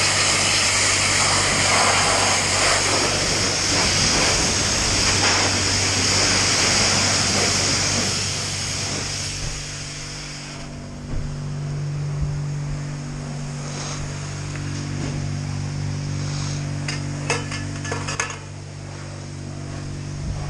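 High-pressure washer jet spraying water onto a dirt bike: a loud, steady hiss over a low machine hum. About ten seconds in the spray stops, leaving a steady hum and a few sharp clicks and knocks.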